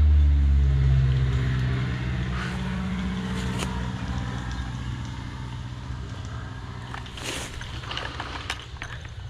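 A motor vehicle's engine running as a low hum, loudest at the start and fading steadily as it moves away. A few faint clicks and a short rustle come near the end.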